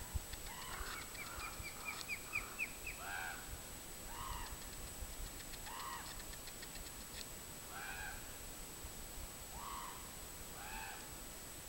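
A crow calling, repeated arched caws every second or two, with a quick run of rising chirps from another bird in the first few seconds.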